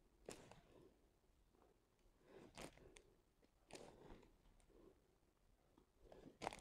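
Faint crinkling of the clear plastic cover film on a diamond-painting canvas, and light clicks of a drill pen setting drills, in four or five short bursts.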